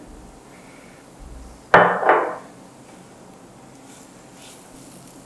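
A sharp knock in the kitchen pan about two seconds in, quickly followed by a softer second knock. Later comes faint scraping as a silicone spatula stirs potatoes in a nonstick pan.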